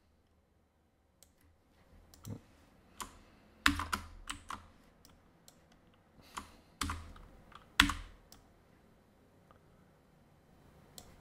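Irregular clicks and taps of a computer keyboard, with a few louder knocks about a third and two-thirds of the way in.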